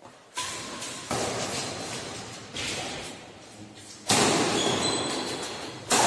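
Badminton rackets hitting a shuttlecock during a doubles rally: five sharp hits about a second apart, each trailing off in a long echo in the hall.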